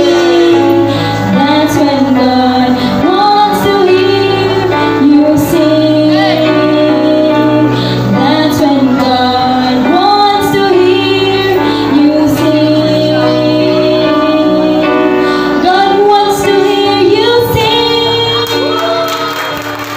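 A woman singing a solo into a microphone over steady instrumental accompaniment. The song trails off near the end as it finishes.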